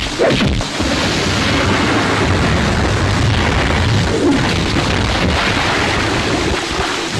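Heavy rain pouring steadily on a film soundtrack, mixed with dull booms from the fight's sound effects.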